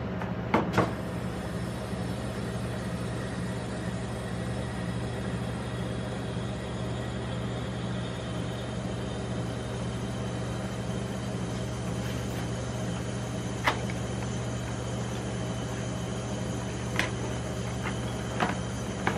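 Steady low hum of the rolled-ice-cream machine's refrigerated cold plate running. A few sharp taps and clicks come from a cardboard box being handled over the metal plate: two close together just after the start and a few more scattered later.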